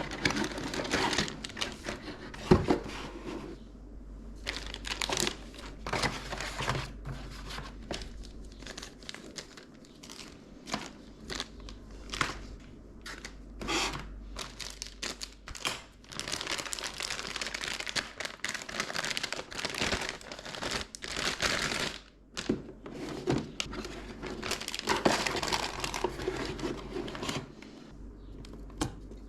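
Packaging being handled and opened: crinkling wrap and rustling with many short clicks and knocks, and longer stretches of crinkling in the second half.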